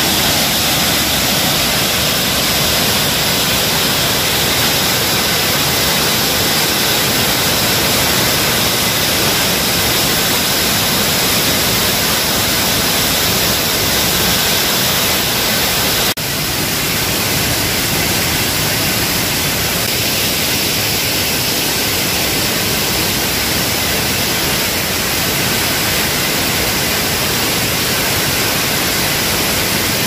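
Loud, steady rush of a tiered waterfall, water pouring down stepped cascades into a pool close by. A short click comes about halfway through, after which the rush is slightly quieter.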